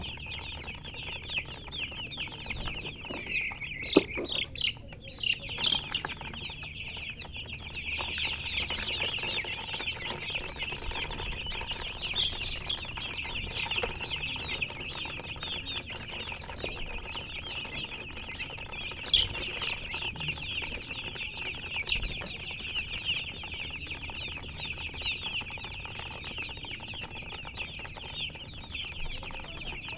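A crowd of chicks peeping continuously: a dense chorus of many short, high cheeps overlapping one another. There are a couple of sharp knocks, one about four seconds in and one around the middle.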